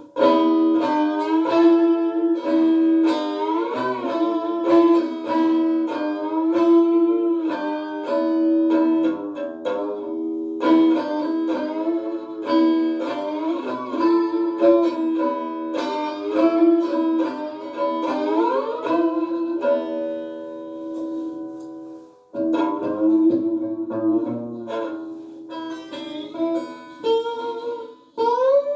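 Three-string electric diddley bow slide guitar played through a small portable amp on its clean setting: plucked notes that ring on with long sustain, joined by gliding slides up and down in pitch, with a brief break about two-thirds of the way through.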